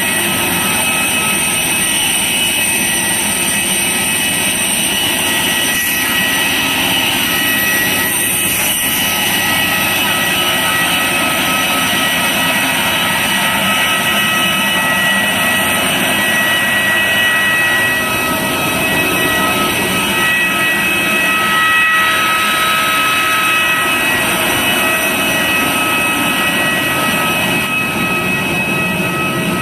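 Jet airliner turbine noise: a loud, steady rush with a constant whine of several held tones.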